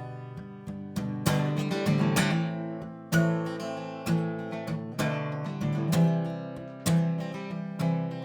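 Acoustic guitar strummed in an instrumental passage of a song, chords struck about once a second and left to ring between strokes, with no singing.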